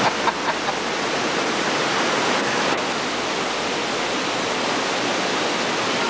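Steady rushing of flowing water, even and unbroken, with a few faint voices about half a second in.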